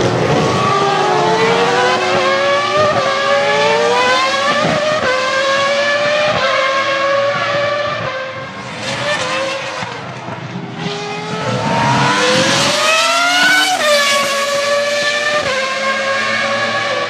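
Formula One car engine at high revs, its pitch climbing and then stepping down at each gear change. It eases off for a few seconds in the middle, then winds up again.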